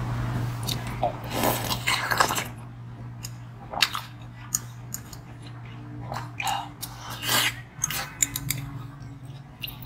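Ice being bitten and crunched close to the microphone, with a metal spoon clinking against ice in a glass: irregular sharp crunches and clicks over a steady low hum.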